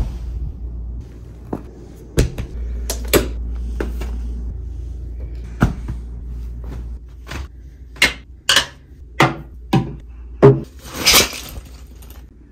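A series of knocks and clicks from small objects being handled and set down, bunched together in the second half, with a short rustling burst near the end. A low hum runs under the first half.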